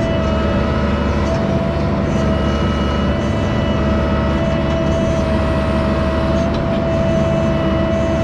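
Mini excavator's diesel engine running steadily, with a steady whine held over the engine hum.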